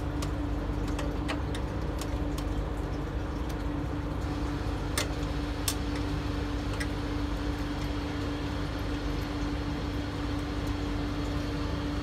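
Scattered light clicks and taps as hands and a screwdriver work on a microwave oven door's plastic frame, over a steady low hum.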